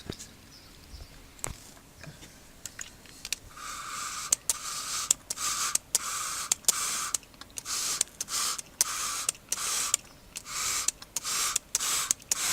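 Water splashing in short repeated bursts, about one a second, as gold flakes left on a filter cloth after nitric acid digestion are rinsed. A few light clicks and handling knocks come before the bursts start, a few seconds in.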